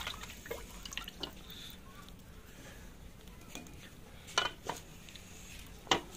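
Wooden spoon stirring chicken, chana dal and water in an aluminium pressure cooker: liquid sloshing with a few light knocks in the first second or so. Near the end come a few sharper knocks of the pot being handled, the loudest one shortly before the end.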